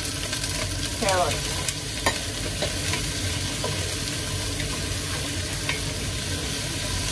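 Chopped onion, celery and carrots sizzling in hot olive oil in a pot while a wooden spoon stirs them, with a few sharp clicks, the loudest about two seconds in.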